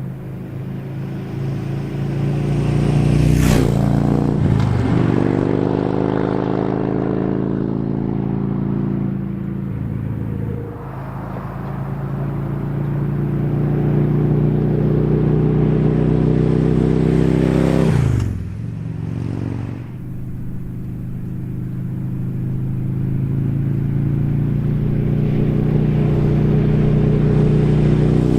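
2015 Harley-Davidson Touring V-twin running through Vance & Hines Monster Oval slip-on mufflers and pulling under load. The exhaust note climbs steadily and drops sharply several times, as at gear changes.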